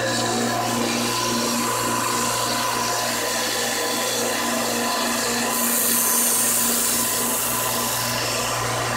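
Electric sharpening grinder's motor running with a steady hum while a knife blade is ground on it; a hissing grind rises about five and a half seconds in and stops about two and a half seconds later.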